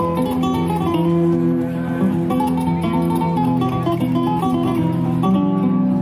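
Plucked-string music with a guitar-like sound: a run of quick melody notes over held low notes, playing without a break.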